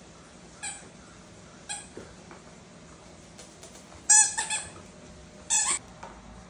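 Short high squeaks from a spiky light-up toy ball as a cockatoo bites it: single squeaks early, then a louder quick cluster about four seconds in and another a second later.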